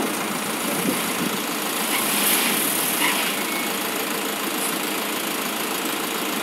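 Flatbed recovery truck's engine running steadily while the truck winches a pickup up its tilted bed.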